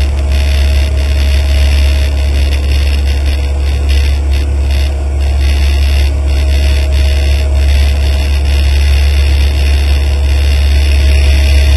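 Cessna 152's four-cylinder Lycoming engine and propeller in flight, heard inside the cabin as a loud, steady low drone with a faint steady whine above it.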